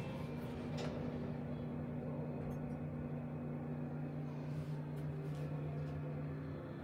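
Schindler elevator machinery humming steadily on two low tones as the car is set to leave, with a click about a second in and a few faint clicks as the doors close.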